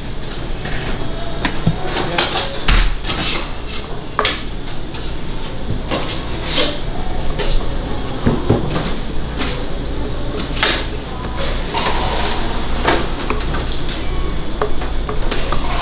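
Kitchen work clatter: scattered knocks and clinks of utensils, pans and dishes on hard counters during barbecue slicing and order prep, over a steady low hum.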